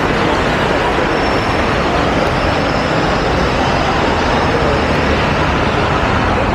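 Steady city traffic noise from buses and cars running along a busy avenue.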